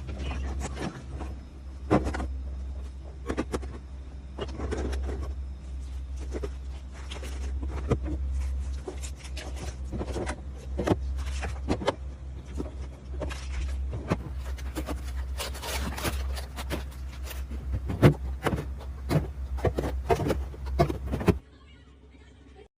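Irregular clicks, taps and knocks of items being handled and set down while a fridge is restocked, over a steady low hum; the sound cuts off shortly before the end.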